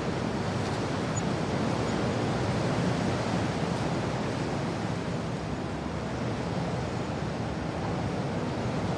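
Wind and rain: a steady, even rushing noise that swells slightly about three seconds in.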